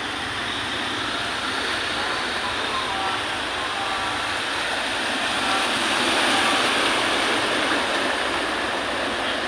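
A car driving through floodwater on a street, its tyres throwing up a wake with a steady rushing splash. The splash swells as the car passes close, a little past halfway through.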